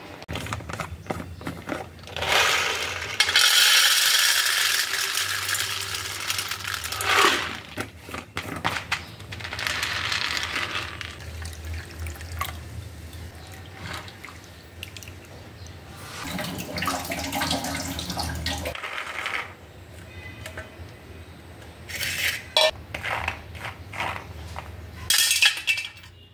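Soaked dried peas being washed by hand in a steel bowl: water pouring and splashing, with peas and steel dishes clinking and rattling on and off.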